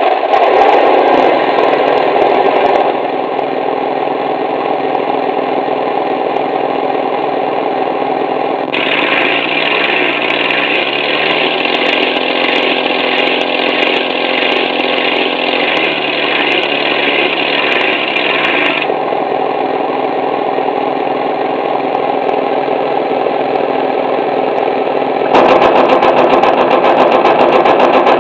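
Engine sound from an electronic sound unit, running steadily. It switches abruptly between different engine sounds several times, the brightest and fastest-pulsing stretch falling in the middle.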